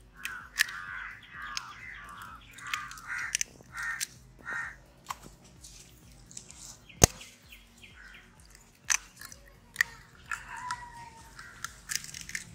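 A bird cawing over and over for the first few seconds, with a few sharp clicks of eggshells being cracked against the rim of a steel pot, the loudest about seven seconds in. A shorter falling bird call comes near the end.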